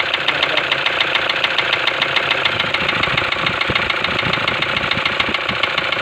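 Toyota Hilux common-rail diesel engine running steadily with a rapid, even knocking clatter: injector knock, which the mechanic puts down to a damaged injector due for replacement.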